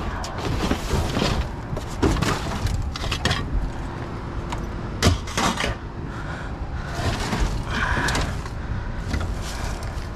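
Rummaging through junk in a dumpster: irregular clatter, rustling and knocks as items are pulled and turned over, with a sharper bang about five seconds in.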